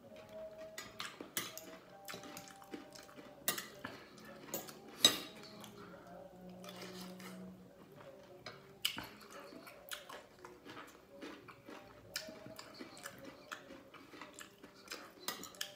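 Metal spoon and fork clinking and scraping on a ceramic plate while eating, in scattered irregular clicks, the loudest about five seconds in.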